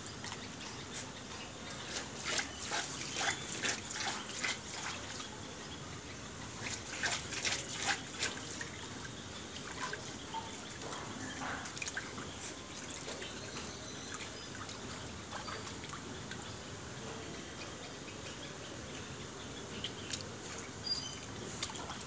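Water trickling on a wet tiled floor, with bouts of small splashes or patters through the first several seconds and again shortly before the end.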